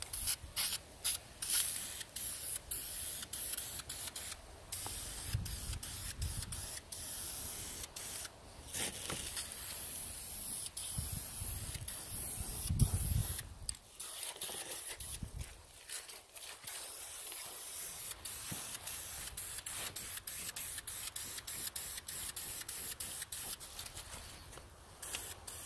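Aerosol spray paint can hissing in many short bursts with brief breaks between them as a coat of paint goes on. A low rumble comes in a couple of times, loudest around the middle.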